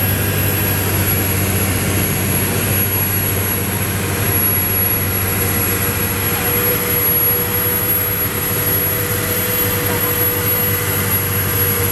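Large Claas farm tractor's diesel engine running hard under full load as it drags a weighted pulling sled on a chain, a steady loud drone that holds without easing.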